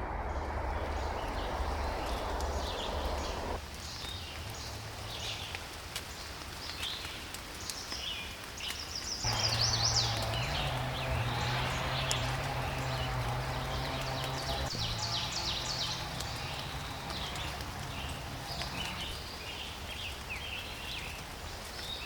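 Small birds chirping in short, repeated calls over steady outdoor background noise. The background changes abruptly twice, a few seconds in and again about nine seconds in.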